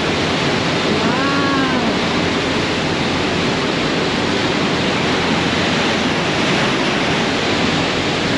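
Steady, loud rush of wind and churning water on the open deck of a moving cruise boat, its wake foaming behind. About a second in, a brief rising-and-falling voice-like call sounds over it.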